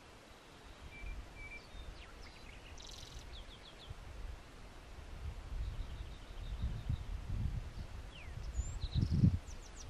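Wild songbirds chirping in scattered short notes, including a quick trill about three seconds in, over a low, gusting rumble of wind on the microphone that swells near the end.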